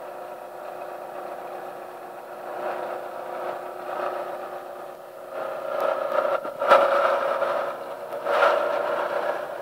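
YCM-40 CNC vertical milling machine cutting metal with an end mill: a steady spindle whir and cutting noise. It grows louder about halfway through, with a couple of sharp clicks.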